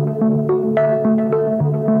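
Background music: a steady run of short pitched notes, about three or four a second, over lower held bass notes.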